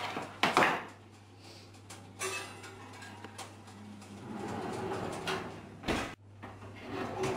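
Oven's wire rack pulled out with a loud metal clatter, a glass baking dish set down on it, then the rack slid back and the oven door shut with a sharp knock about six seconds in, over a steady low hum.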